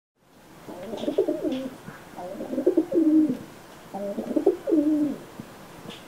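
Domestic pigeon cooing: three phrases of low, wavering coos, each about a second long, with short pauses between them.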